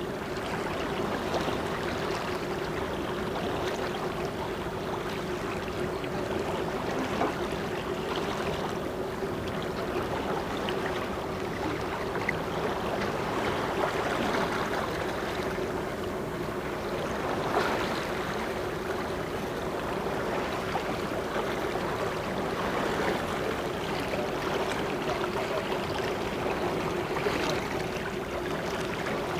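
Water rushing and splashing along the hull of a sailing yacht under way, with a steady hum running underneath.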